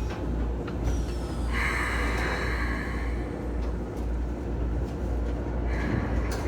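Keikyu New 1000 series train's Mitsubishi IGBT-VVVF inverter and traction motors whining under the car floor, heard from inside the car over a steady running rumble, with a falling high whine about a second in. The motors are unusually loud, which the owner puts down to motors swapped in from another set.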